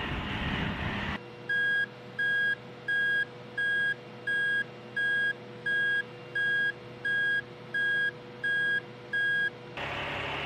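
Military truck's backup alarm beeping twelve times, evenly about 0.7 s apart, over the truck's steady engine hum. A rushing noise is heard before the beeping starts about a second in, and returns near the end.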